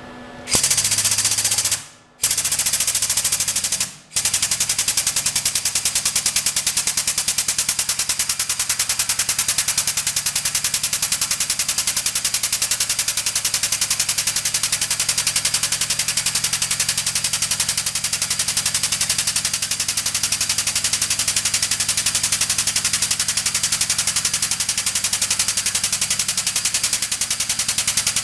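Air-over-hydraulic 12-ton jack's air pump chattering rapidly and evenly as it pumps the ram out, swinging the tubing bender's die around. It starts about half a second in and stops briefly twice in the first few seconds, then runs on steadily.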